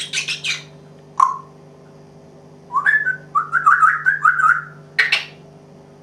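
African grey parrot calling: a quick run of short, harsh noisy bursts at the start and a single short whistle about a second in. From about three seconds in comes a warbling string of whistled notes, then one more harsh burst near the end.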